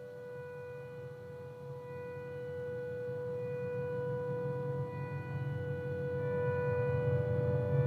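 Ambient drone from an electric guitar played through effects and amplifiers: one held tone with overtones over a low rumble, slowly swelling louder.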